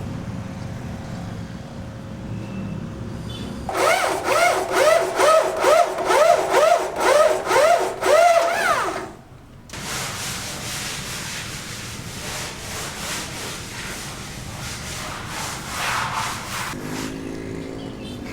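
Rhythmic sawing strokes, about two a second, each with a rising squeal, starting about four seconds in after a low rumble; after a short pause, lighter and faster scraping strokes follow.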